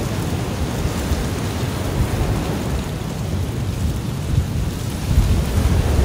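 Ocean surf washing against the shore, with wind buffeting a phone's microphone in low gusts that swell again near the end.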